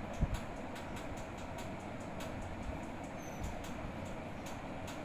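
Steady background rumble with a low hum, over which come faint, irregular crackles as a soldering iron melts rosin-core solder onto circuit-board pins. There is a soft thump about a quarter second in.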